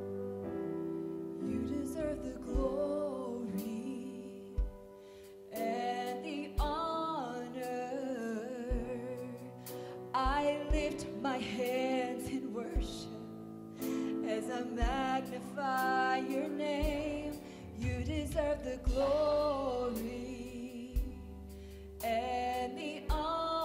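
Live worship music: a woman singing a slow song, her held notes wavering with vibrato, over sustained piano chords with drum hits.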